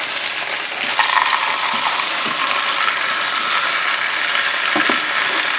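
Chicken breasts sizzling steadily in hot oil as they brown in a multi-cooker pot.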